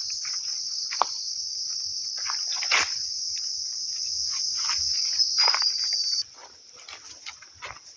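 Jungle insects droning in a steady high-pitched chorus that cuts off suddenly about six seconds in, with short, sharp sounds scattered throughout.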